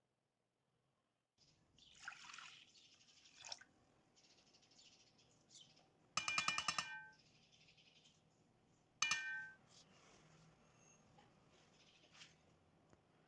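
Milk pouring briefly into a metal pot, then a small glass cup rattling and clinking with a ringing tone as cornstarch is tipped out of it, and one sharp ringing glass clink a few seconds later.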